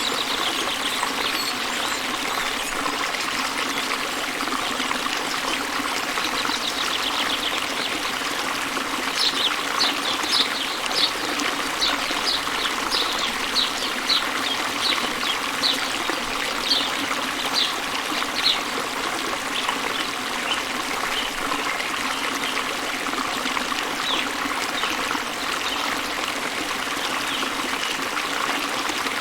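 Steady rush of flowing water from a waterfall. From about nine to eighteen seconds in, a bird repeats short high chirps about twice a second.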